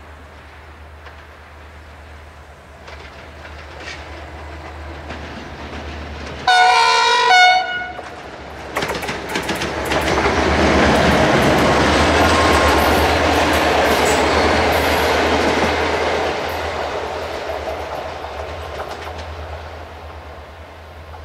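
Locomotive horn gives a short two-note blast about six seconds in. Then a passenger train passes close by, with rumbling and wheels clacking over the rail joints. It is loudest in the middle and fades as the coaches move away.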